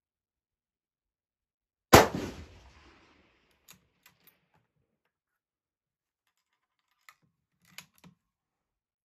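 A single shot from a Howa 1500 bolt-action rifle in .308 fitted with a muzzle brake: one loud crack about two seconds in, ringing away over about a second. Later come a few faint clicks, in two small groups, as the bolt is worked.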